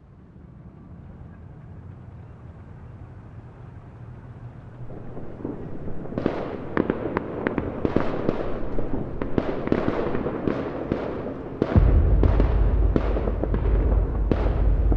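Battle soundscape fading in: a low rumble swells, then from about six seconds in scattered gunshots crack at irregular intervals, growing louder. Just before twelve seconds a heavy low rumble joins under the shots.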